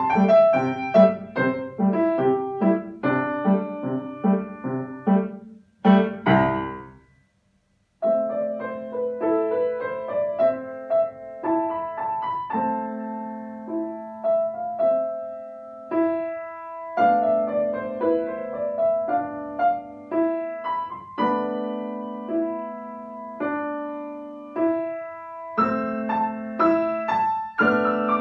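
Grand piano played solo: a quick passage of classical music ends on a loud chord about six seconds in, a second of silence follows, then a new piece begins with held low bass notes under a moving melody.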